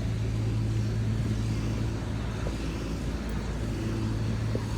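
Car engine and road noise heard from inside the cabin while driving: a steady low hum under an even rush.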